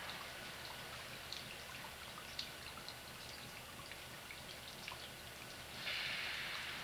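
Light rain falling, with scattered faint drop ticks over a steady hiss; a louder hiss comes in near the end.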